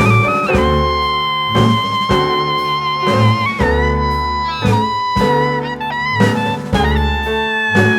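Background music: a sustained melodic lead over a steady beat.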